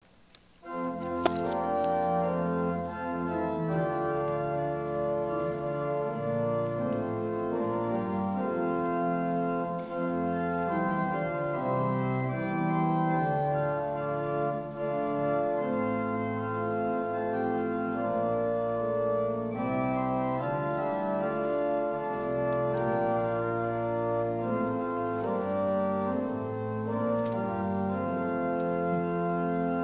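Church organ playing the introduction to a hymn: held chords moving every second or two over sustained bass notes. A single sharp click sounds about a second in.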